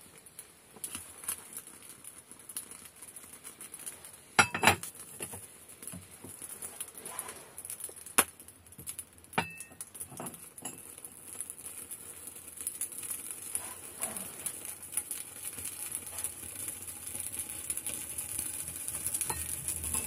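Freshly lit kindling crackling in a wood stove's firebox, with cast-iron hotplate rings clinking as they are set back onto the stove top, the sharpest clinks about four and a half and eight seconds in. The fire's crackle grows louder toward the end as the stove draws strongly.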